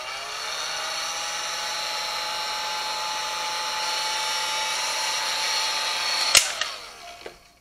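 Handheld heat gun's fan motor running with a steady whine while shrinking heat-shrink tubing over a soldered joint. Its pitch rises as it comes up to speed at the start, and about six seconds in it is switched off with a click and winds down.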